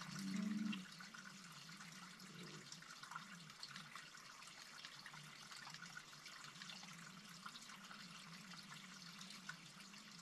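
Faint steady trickling water with a fine crackle of drips, and a brief low voice in the first second.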